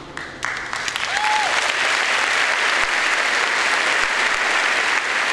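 Audience applauding, starting about half a second in, building up over the next second and then holding steady.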